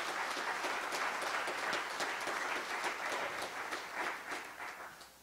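Congregation applauding: a steady round of many hands clapping, fading out near the end.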